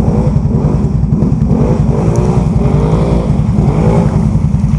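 Can-Am Renegade 1000 ATV's V-twin engine running hard under load in deep mud, revving up and down over and over as the throttle is worked.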